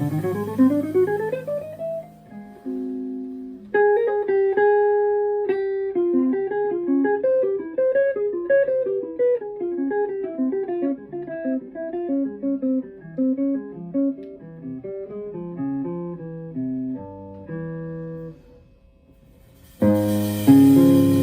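Jazz guitar playing an unaccompanied passage: a rising slide, then a run of single notes and chords. The full band, drums and cymbals included, comes back in near the end.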